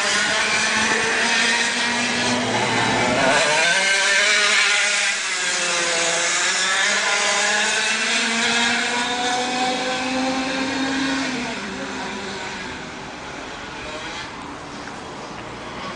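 Go-kart engines running laps, their pitch rising as they accelerate and dropping as they slow for corners, fading somewhat in the last few seconds.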